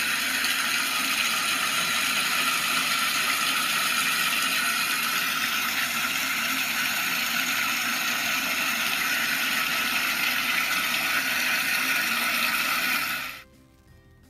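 Water running from a tap to fill a bathtub, a steady loud rush that cuts off suddenly about thirteen seconds in.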